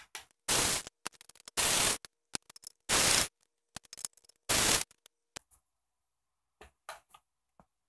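Small cordless electric screwdriver backing out four screws from a sheet-metal plate, running in four short hissing bursts of about half a second each, with light clicks and taps of the bit and screws between them.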